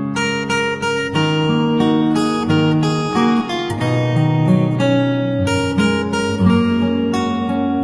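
Background music: acoustic guitar played with strummed chords and held notes.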